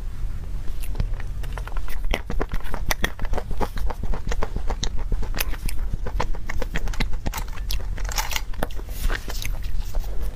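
Clear plastic dessert cup and plastic gloves being handled, giving many small clicks and crinkles, with a short rustling burst about eight seconds in. A steady low hum runs underneath.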